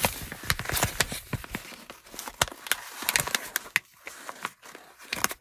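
A fast, irregular run of sharp clicks and taps, thinning out and getting quieter near the end.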